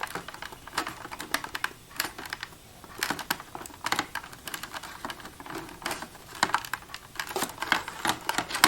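Irregular small plastic clicks and taps as the Accubanker D64's fluorescent UV tube is handled and twisted in its sockets to lock it into place.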